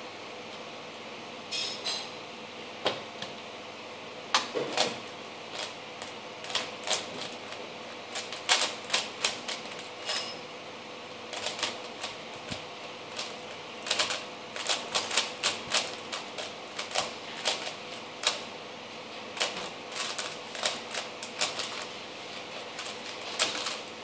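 Unlubricated 3x3 Rubik's cube being turned fast in a speedsolve, its layers clicking and clacking in quick, irregular flurries.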